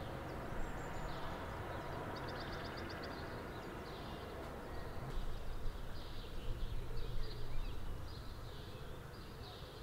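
Outdoor natural ambience: a low steady rumble and hiss, with short high chirps repeating about once a second and a quick run of ticks about two seconds in.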